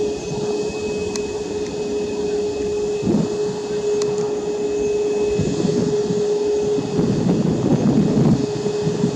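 Boeing 737 MAX 8's CFM LEAP-1B turbofan engines at takeoff power, heard from behind: a steady high whine with a rumble that grows louder from about five seconds in as the jet rolls down the runway.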